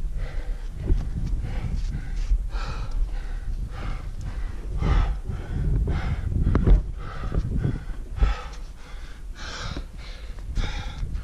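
A climber's hard, rapid breathing close to the microphone, breath after breath about once or twice a second. These are laboured breaths from climbing rock with a 50 lb pack at about 6000 m, with a low rumble underneath.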